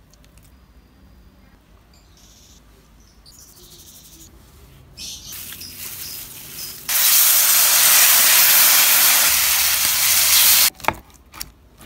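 Marinated chicken thighs sizzling in a hot frying pan: a loud, even sizzle that starts about seven seconds in and cuts off suddenly near the end, after a quieter hiss for a couple of seconds before it.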